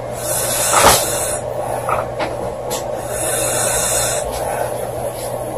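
A woman snoring: slow breaths with a hissing, breathy rasp that swells about every three seconds, over a steady low hum. A brief sharp sound about a second in is the loudest moment.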